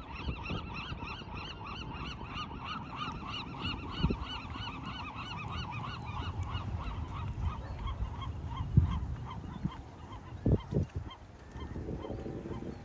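A gull calling: a long run of repeated yelping notes, about three or four a second, trailing off over several seconds. A few low thumps of wind or handling on the microphone come through, the strongest about nine seconds in.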